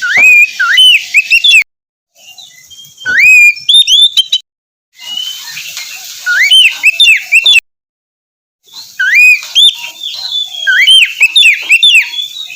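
Oriental magpie-robin (kacer) singing loud, whistled phrases with quick rising and falling loops, in bursts of a second or two that cut off suddenly between short silent gaps.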